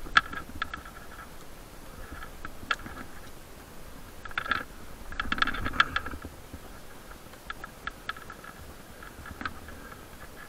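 Climbing hardware clinking and rattling: irregular small sharp clicks and short jangling clusters, busiest about four to six seconds in.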